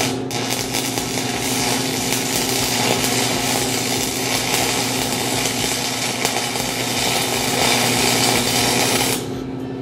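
Stick (shielded metal arc) welding: the electrode's arc crackles and sizzles steadily as a bead is run along a poorly fitted, gapped seam between steel plates. The arc is broken off sharply about nine seconds in.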